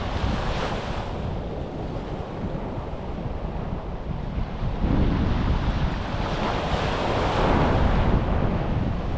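Sea waves washing onto a beach, with wind buffeting the microphone as a low rumble. The surf swells about five seconds in and again around seven to eight seconds.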